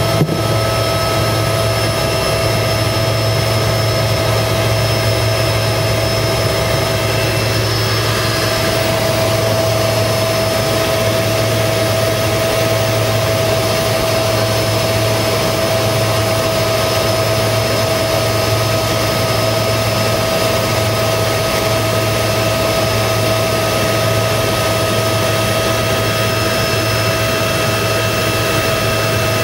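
Engine of the craft carrying the camera running steadily at a constant speed while under way on the water: a continuous drone with a steady low hum and a few constant higher tones.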